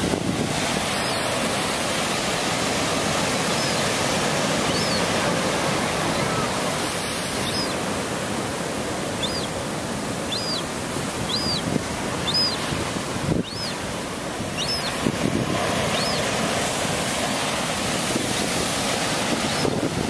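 Surf washing against the rocks below, with wind on the microphone, fills the sound steadily. Over it a young western gull gives about a dozen thin, high begging peeps, each a short up-and-down note, roughly one a second, stopping a few seconds before the end: the hungry chick crying for food.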